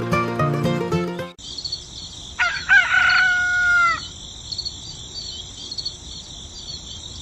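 Background music breaks off abruptly about a second in. Then a rooster crows once, for about a second and a half, over a steady high-pitched hiss.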